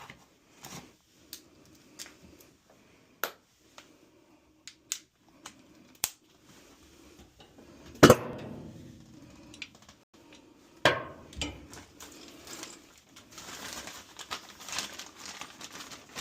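Metal parts and tools being handled: scattered sharp clicks and clinks, then a loud clank about eight seconds in that rings on briefly, another knock a few seconds later, and scraping toward the end.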